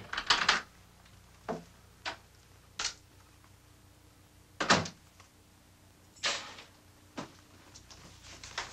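A door being unlocked, opened and shut: about eight sharp clicks and knocks spread over several seconds, the loudest about halfway through.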